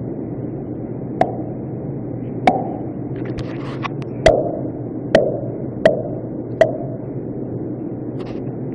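Six mouth pops, short sharp pops with a hollow ring, spaced unevenly about a second apart: a mother and her baby trading pop sounds.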